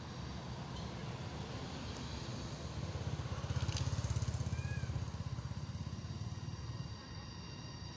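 Low engine rumble of a passing motor vehicle, swelling about three seconds in and fading again about two seconds later, with a brief high chirp near its loudest point.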